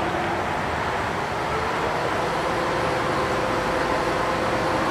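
Bridgeport vertical milling machine head running in high range, spindle turning at about 500 RPM, a steady mechanical hum with a faint whine. The whine shifts higher about a second and a half in.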